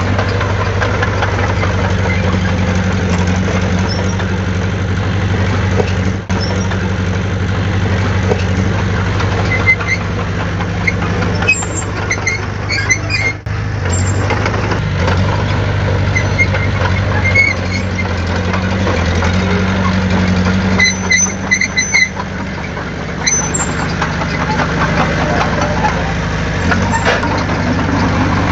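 Heavy diesel engine of earthmoving equipment running steadily at a low, even hum, with brief high squeaks now and then.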